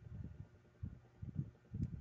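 Dull, irregular low knocks and handling noise as small spinning-reel parts are fitted by hand, with one faint click near the end.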